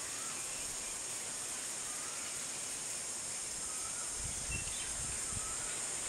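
Steady high-pitched insect drone with a few faint, short bird notes scattered through it, and a brief low rumble about four seconds in.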